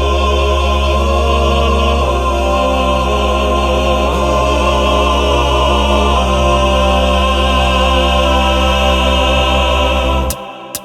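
Music: a choir of voices holding sustained chords that shift every couple of seconds, then cutting off suddenly near the end.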